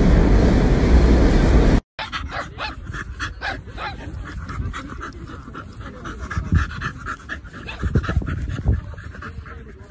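Low rumble of a moving subway car that cuts off abruptly about two seconds in. Then a dog pants quickly and rhythmically as it plays with a football, with a few dull low thumps.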